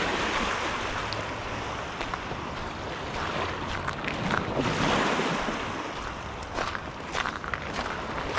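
Waves washing onto the Lake Ontario shore, the surf swelling near the start and again about five seconds in, with a few light clicks.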